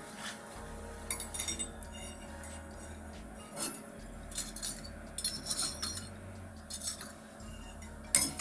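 Metal skewers clinking against the rails of a charcoal grill as they are laid over the coals and shifted: a series of light, scattered clinks, the loudest one near the end.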